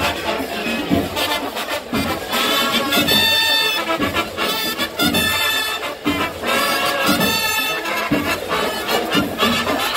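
Marching band playing live, with trumpets and trombones sounding held chords over a steady drum beat.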